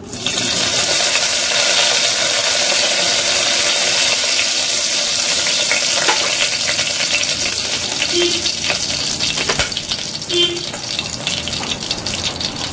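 Fresh curry leaves dropped into hot oil with fennel seeds and black pepper, bursting at once into loud sizzling and crackling as the tempering fries, then slowly easing off.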